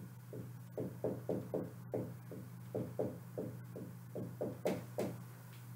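Dry-erase marker writing on a whiteboard: a quick run of short squeaky strokes in small groups as the letters go down, with brief pauses between words. A steady low hum runs underneath.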